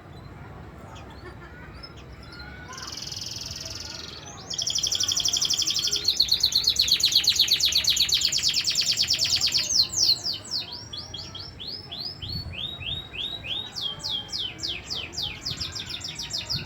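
Domestic canary singing: a brief high trill, then a loud, very rapid trill lasting several seconds, followed by a run of quick repeated notes that each sweep downward in pitch.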